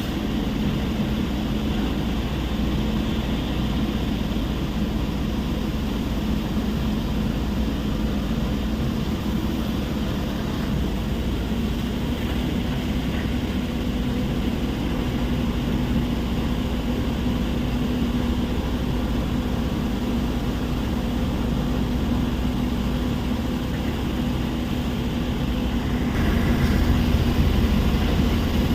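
Heavy machinery at a stone crushing plant running steadily: a constant engine drone with a steady hum, a little louder near the end.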